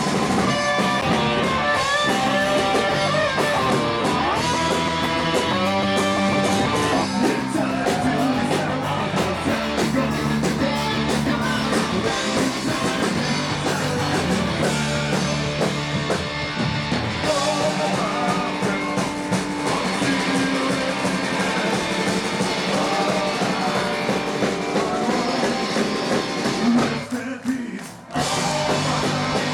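Ska band playing live, with electric guitar and drum kit. The music stops briefly near the end and then comes back in.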